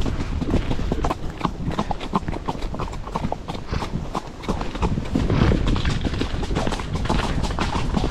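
Horse's hoofbeats, a quick, irregular run of thuds and clicks over a steady low rumble.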